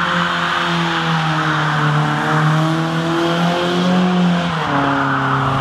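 Car engine held at high revs over a steady rushing hiss of tyre noise. The revs drop a little near the end.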